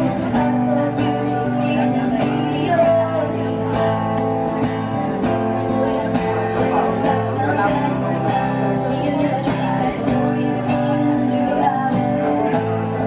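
Music with plucked guitar and a steady beat.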